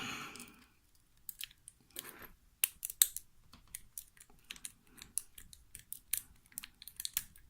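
Irregular small metallic clicks and scrapes of a rake pick being worked in and out of the keyway of a five-wafer laminated Sears padlock, the wafers ticking against the pick.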